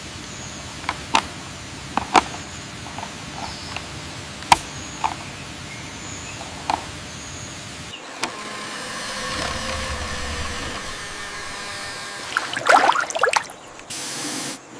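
Small hard clicks and taps of toy cars being handled and set down. About eight seconds in, a steady whirring with a faint hum starts, and near the end there is a quick burst of louder clicks and rattles.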